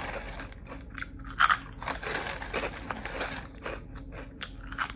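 Close-up crunchy chewing and biting of a bagged snack, a series of uneven crunches with the loudest about one and a half seconds in.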